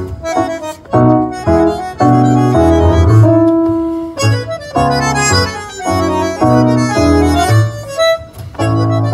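Bandoneon playing tango, with sustained chords over bass notes in phrases broken by brief pauses.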